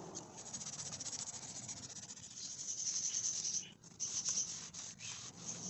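Rag rubbed quickly over the metal of a car's in-tank fuel pump and sender assembly, a rapid scrubbing hiss with a brief break a little past halfway.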